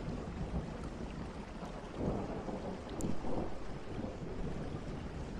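Steady rain with low thunder rumbling, the rumble swelling slightly about two and three seconds in.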